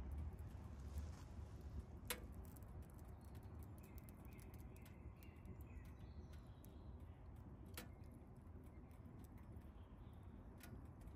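Quiet woodland ambience with a low rumble, faint bird chirps in a short series about halfway through, and two sharp clicks, one about two seconds in and one about eight seconds in.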